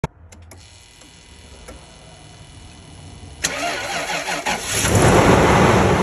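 A car engine starting: a low rumble, then a sudden loud start a little past halfway that grows louder toward the end and cuts off abruptly.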